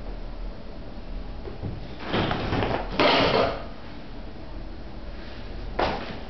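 Two cats fighting: three short noisy bursts of scuffling and hissing, the loudest a little after three seconds in and starting with a sharp click, the last one brief, near the end.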